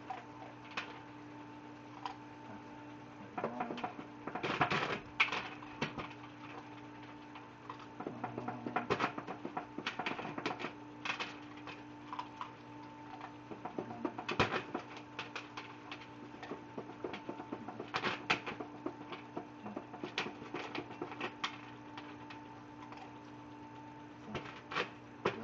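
Siberian husky puppy licking and nosing at food on a plastic bucket lid: irregular clicks and taps of teeth, tongue and muzzle on the plastic, coming in scattered clusters.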